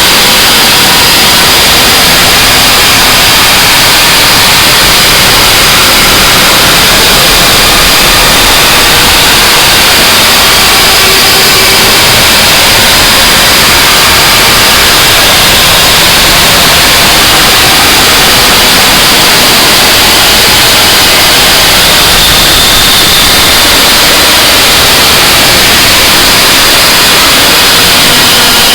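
Harsh noise wall music: a loud, unchanging wall of distorted static with no rhythm or pitch, brightest in the upper range.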